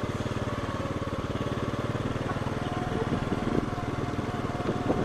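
Small motorcycle engine running steadily at low speed, with a fast, even firing pulse.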